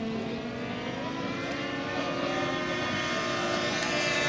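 Engines of several radio-controlled model fighter planes running in flight, their pitches sliding as they pass, growing louder near the end.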